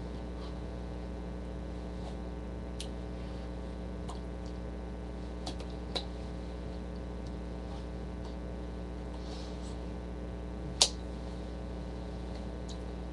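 Steady electrical mains hum with a few faint clicks, and one sharp, louder click a couple of seconds before the end.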